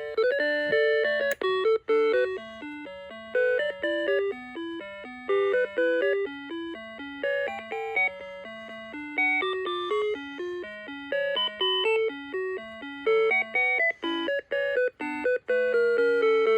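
A 1989 Seiko Musica alarm clock playing one of its built-in electronic melodies: a tune of short, quickly changing notes over a lower accompanying part. A brief click sounds about a second in.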